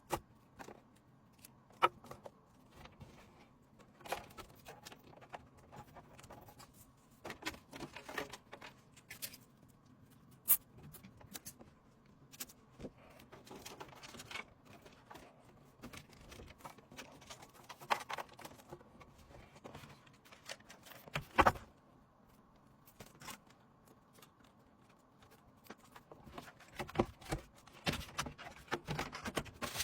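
Scattered small clicks, taps and knocks of computer hardware being handled and fitted by hand during a PC build, a few sharper knocks standing out, the loudest about 21 seconds in.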